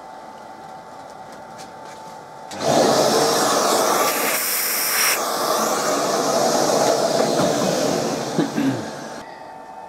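Workshop vacuum cleaner (hoover) switching on about two and a half seconds in and sucking metal swarf out of a freshly milled pocket, chips rattling into the nozzle, then switching off shortly before the end. A faint steady hum comes before it.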